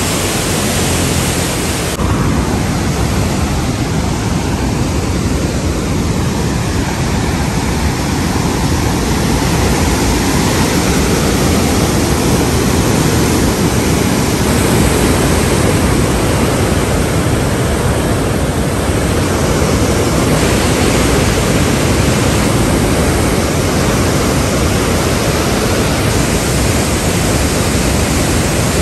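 Floodwater pouring through the gates of a river barrage: a loud, steady rush of churning, muddy water that shifts in tone abruptly a few times.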